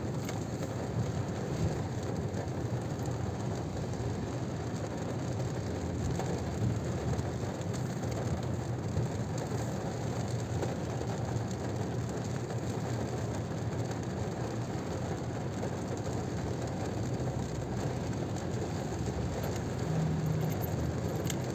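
Rain on a Mazda 3, heard from inside the cabin over the car's low steady rumble: an even wash of noise.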